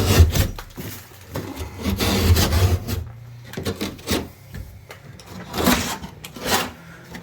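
Utility knife cutting plasterboard, in a series of irregular scraping strokes.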